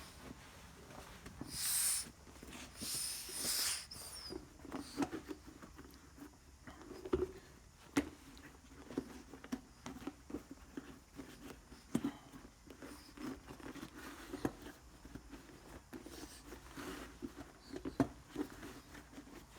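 Hands working a patched rubber inner tube back into a small trolley tyre: scratchy rubbing and occasional light knocks, with two short hisses about two and three seconds in.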